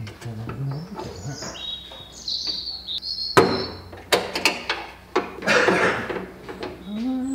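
Knocks, clicks and clatter of hand work on car interior parts, with high-pitched squeaks early on and one sharp knock about three and a half seconds in.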